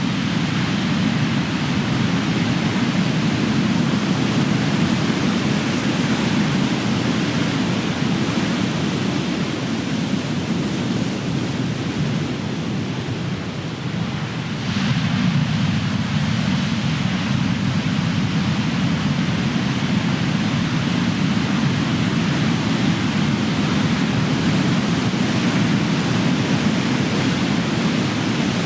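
Big ocean waves breaking on the shore: a continuous, deep rush of surf that eases off about halfway through, then surges again as a new wave crashes.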